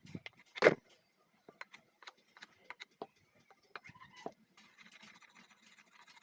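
Irregular sharp knocks and taps of hammer work, with one loud strike about half a second in, then fainter scattered taps.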